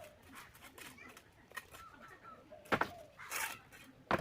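Bricklaying: a steel trowel knocking on brick twice, sharp hard clicks about a second and a half apart, with a short scrape between them.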